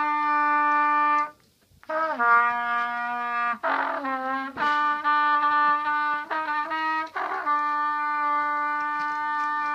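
Trumpet playing long held notes with a brief break about a second in; the next notes bend downward in pitch, a few short notes come around six seconds in, and it ends on a long steady note.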